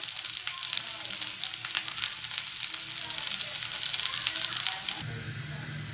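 Rice-flour roti sizzling and crackling in oil on a non-stick frying pan over a low flame. About a second before the end the crackle drops away and a low steady hum takes over.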